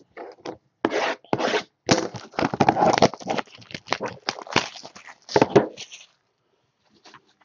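Panini Court Kings trading-card hobby box being opened by hand: uneven bursts of rubbing, scraping and tearing of cardboard and packaging that stop about six seconds in.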